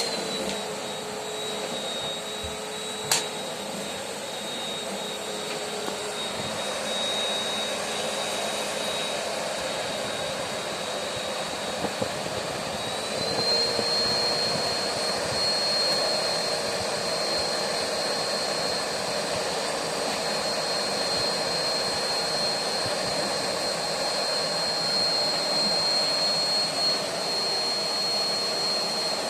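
Bosch BGC1UB130 bagless vacuum cleaner running: a steady rushing noise with a high motor whine. The whine drops slightly in pitch at the start and rises a little about 13 seconds in. One sharp click about 3 seconds in.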